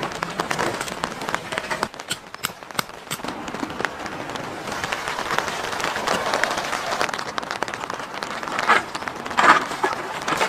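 Rain falling: a dense patter of drops with sharp separate drips, and a couple of louder bursts near the end.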